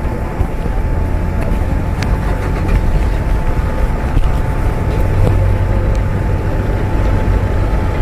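Toyota Innova MPV moving slowly past at close range: steady engine and tyre noise over a continuous low rumble.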